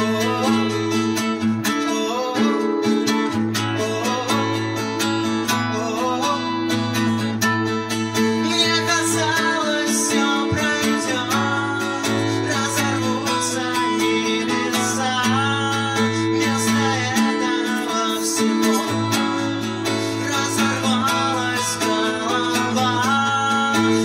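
Band playing a song: strummed acoustic guitar over sustained bass notes and drums with cymbals, with a voice singing, more prominent in the second half.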